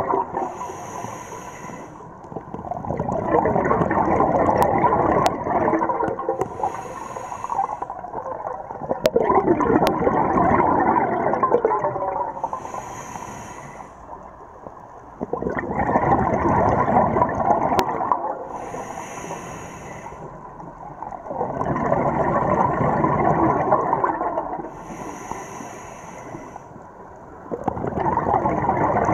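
Scuba diver's regulator breathing underwater: about five slow breaths, each a short hiss of inhalation followed by a few seconds of gurgling exhaust bubbles.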